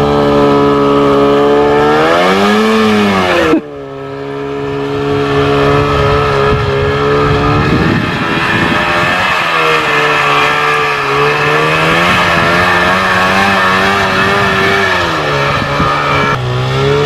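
1995 Polaris Indy Trail 500 snowmobile's two-stroke engine running under load through deep snow, its note rising and falling with the throttle. The sound jumps abruptly about three and a half seconds in and again near the end.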